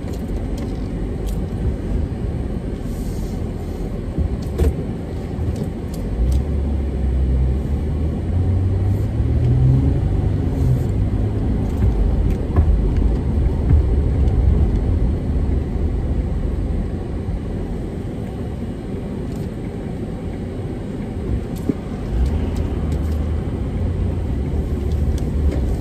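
Minivan engine and road noise heard from inside the cabin while driving: a steady low rumble that grows louder about six seconds in. The engine note climbs for a couple of seconds around nine to ten seconds in, then drops back.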